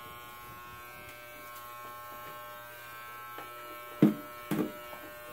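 Corded electric hair clippers with a comb guard running with a steady buzz. About four seconds in come two loud knocks, half a second apart.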